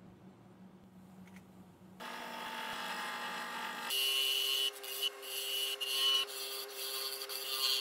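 After about two seconds of faint low hum, a wood lathe spins a wooden blank while a flat turning chisel cuts into it. The lathe hums steadily under a scraping cut, and the scraping drops out briefly several times.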